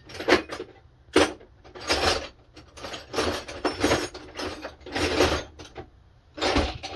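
Metal hand tools clattering and scraping in about eight short rattling bursts, each under a second apart.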